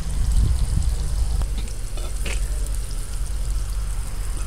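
Food sizzling in hot fat in a frying pan, with a few light clicks and a steady low hum underneath.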